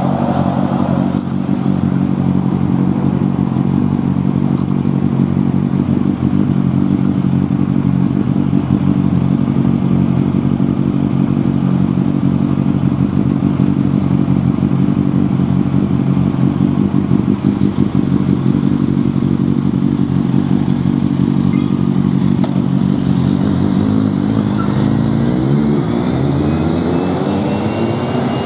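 Motorcycle engine idling steadily close by, then revving and pulling away with rising and falling pitch near the end.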